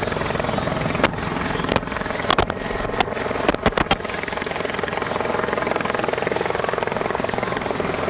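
Helicopter rotor and engine running steadily, with several sharp clicks in the first half.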